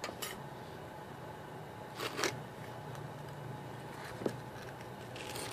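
Wooden sand-casting flask being pulled apart by hand: a few short scrapes and knocks of wood and packed sand, the loudest cluster about two seconds in, over a steady low hum.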